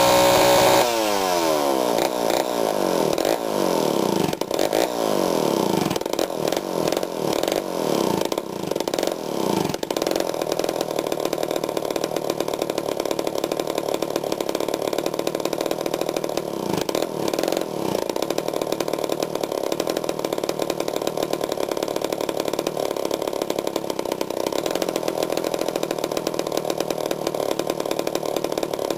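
Homelite Zip 77cc two-stroke chainsaw engine running: its pitch drops sharply in the first couple of seconds as the throttle comes off, rises and falls unevenly for about ten seconds, then settles into a steady run.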